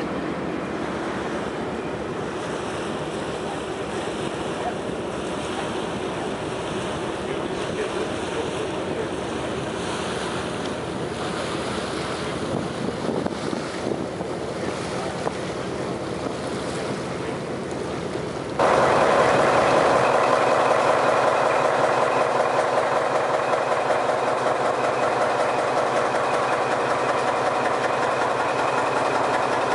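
Wind and water rushing past the ferry Møn's open deck, with the ship's engine humming underneath. About two-thirds of the way in, it cuts to the engine room, where the ferry's engine runs much louder, with a steady fast beat.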